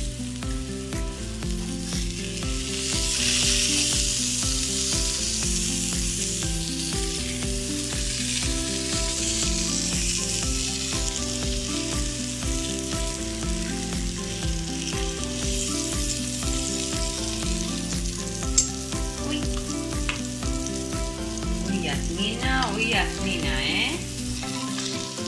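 Slices of aubergine sizzling as they fry in oil in a pan, the sizzle steady throughout. Metal tongs give one sharp tap a little past the middle as the slices are turned.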